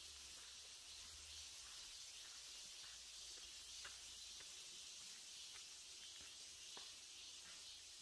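Faint, steady high-pitched chorus of insects, with a few soft ticks scattered through it.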